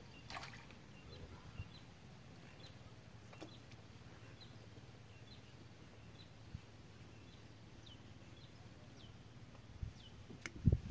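Faint outdoor quiet with small birds giving short high chirps over and over. A knock about half a second in and two sharper, louder knocks near the end come from fishing rods being handled against the bamboo platform.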